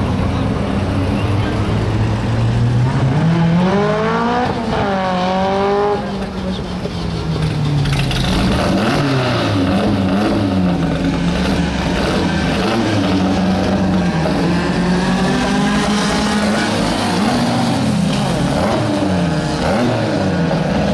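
Air-cooled VW Beetle flat-four racing engines revving. About four seconds in one accelerates hard, its pitch climbing and dropping back at each gear change, then several engines rev and run together, pitches rising and falling over one another.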